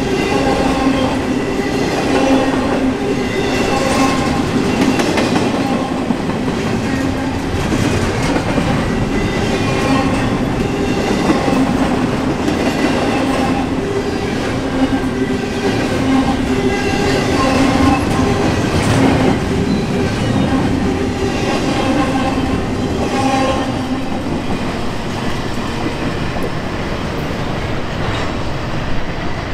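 Loaded double-stack container well cars of a freight train rolling past, their steel wheels clattering steadily on the rails. Metallic whining tones rise up and die away every second or two.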